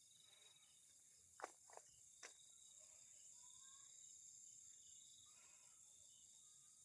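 Crickets and other night insects chirring steadily and faintly. Three short sharp clicks come about one and a half to two and a half seconds in.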